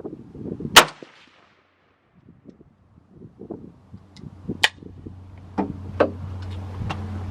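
A single loud rifle shot from an AK-47 about a second in. A few fainter sharp cracks follow later, over a low steady hum that starts about halfway through.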